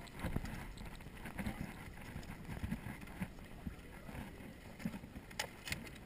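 Footsteps and gear rustling from airsoft players on the move, heard as irregular low thumps and scuffs on a body-worn camera. Two sharp clicks come close together near the end.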